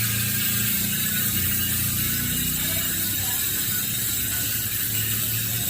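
Bicycle rear hub freewheeling as the wheel spins, its pawls ratcheting in a fast, steady, even buzz.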